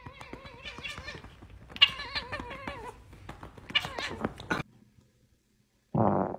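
Long-haired tabby cat yowling in drawn-out, wavering meows, with a louder cry about four seconds in. After a short silence, a brief loud noisy burst comes near the end.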